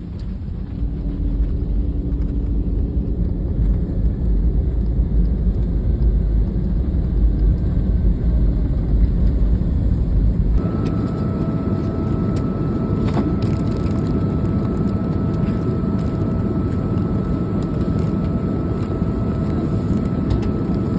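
Airliner cabin noise: a steady rush of engine and air noise with a deep rumble. About ten seconds in, the rumble drops away and a steady high whine joins the noise.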